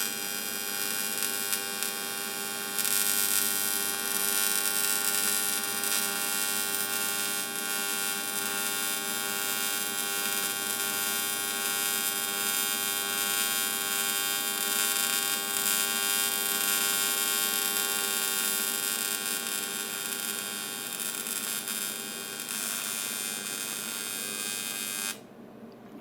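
TIG welding arc buzzing steadily as a flange is welded onto a boost tube turning on a rotary table, then cutting off suddenly about a second before the end.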